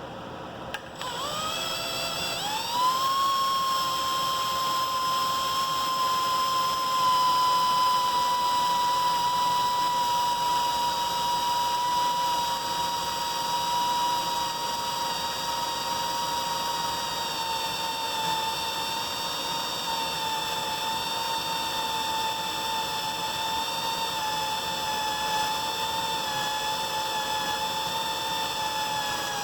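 Electric drill clicking on about a second in, spinning up over a couple of seconds, then running with a steady high whine that sinks slowly as it drills pilot holes in a snowblower wear edge.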